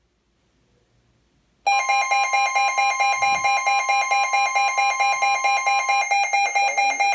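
Emergency Alert System attention tone on NOAA Weather Radio: a loud, steady electronic alarm tone that cuts in suddenly about a second and a half in, pulsing rapidly and evenly, with one of its pitches dropping out near the end. It signals the start of a new warning message.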